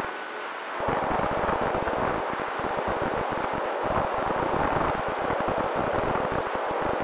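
Wind rushing and buffeting over the onboard camera microphone of an FPV model plane in low flight on its landing approach. The buffeting gets louder about a second in and stays ragged and uneven.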